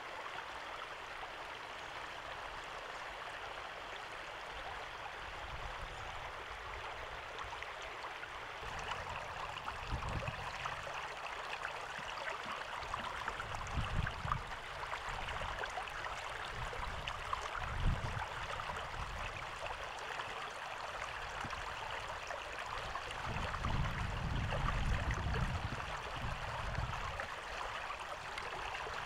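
Shallow floodwater rushing and churning steadily. There are a few low thumps through the middle and a longer low rumble near the end.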